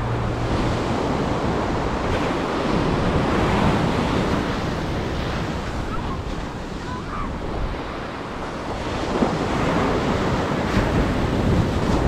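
Surf breaking and washing up a sandy beach, a steady roar of noise that swells and eases as the waves come in, with wind buffeting the microphone.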